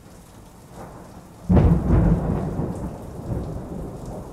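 Thunderclap sound effect over rain: a steady rain hiss, then about a second and a half in a sudden loud crack of thunder that rumbles and slowly fades.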